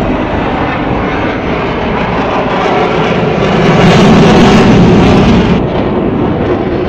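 Fighter jet's engine noise overhead, a deep rumble with hiss that builds to its loudest about four seconds in, then drops off suddenly about five and a half seconds in.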